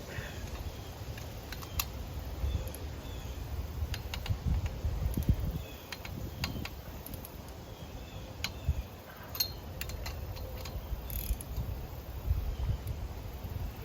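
Wheel spacer nuts being tightened onto a car's hub with hand tools: scattered, irregular metallic clicks like a ratchet, over a low rumble.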